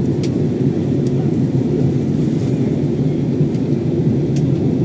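Steady low rumble of engine and airflow noise inside an airliner's passenger cabin during the descent to land.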